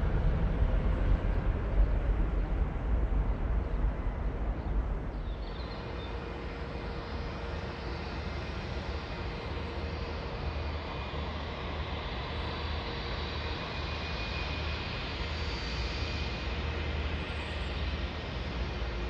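Jet airliner engines across the airfield: a low rumble for the first five seconds or so, then a steady high whine that grows a little louder toward the end.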